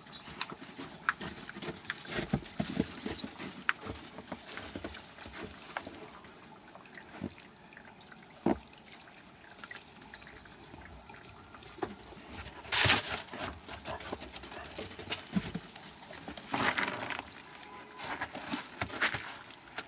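Footsteps crunching in snow and on snowy wooden steps: irregular crunches and knocks, with a few louder bursts of crunching.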